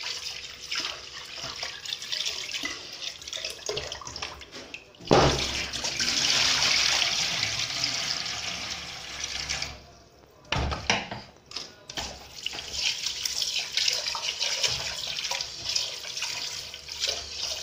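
Tap water running into a pressure cooker pot of rice while a hand swishes and rubs the grains, which is the rinsing of raw rice. About five seconds in, a louder gush lasting about four seconds as the cloudy wash water is poured off into the steel sink. Then the tap runs into the pot again and the swishing resumes.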